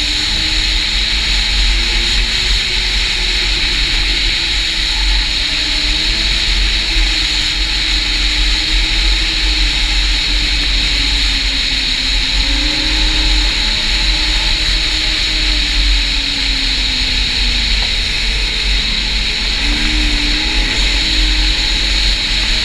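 Snowmobile engine running at speed, its pitch drifting up and down with the throttle, over a steady low rumble and hiss.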